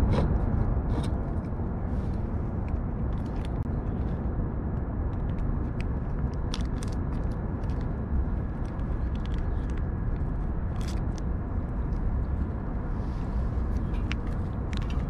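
Steady low rumble of outdoor background noise, with scattered light clicks and taps.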